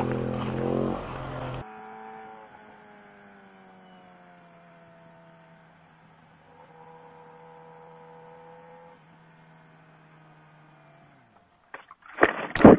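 Sport motorcycle engine running quietly and steadily, its pitch easing slightly lower, then fading away. Near the end come loud scraping and banging impacts as the bike crashes over. Before that, the first second and a half is a louder engine with rushing noise that cuts off abruptly.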